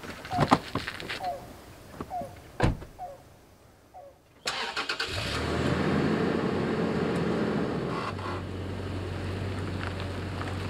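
A few footsteps or knocks, then about four seconds in a car engine starts and runs steadily, with a slight change in its note a few seconds later.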